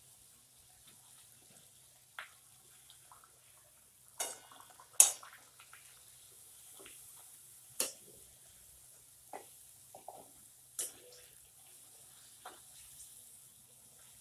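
Pooris frying in hot oil in a metal kadhai, a faint steady sizzle, with scattered sharp clicks and clinks of a metal slotted spoon against the pan, the loudest about five seconds in.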